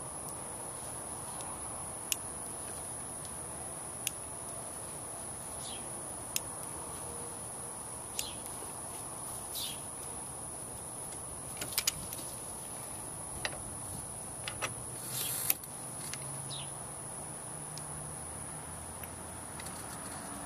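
A steady high-pitched insect chirr outdoors, with scattered light clicks and taps of a grease gun and its hose coupler being handled and fitted to the grease fittings of a golf cart's front steering linkage.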